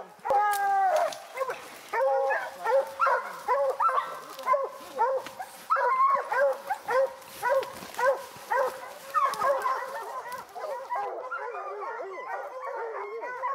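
A pack of bear hounds barking and baying together at the foot of a tree, many voices overlapping: the tree bark that tells the hunters a black bear is treed. For the last couple of seconds the barking sounds duller and steadier.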